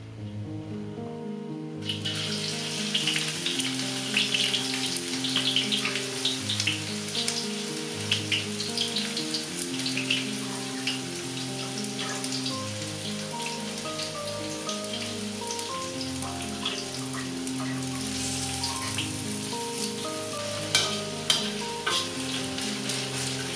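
Sliced red onions frying in hot oil in a stainless steel wok: a dense crackling sizzle that starts about two seconds in as they hit the oil, under background music. Near the end a metal spoon clicks against the wok a couple of times as the onions are stirred.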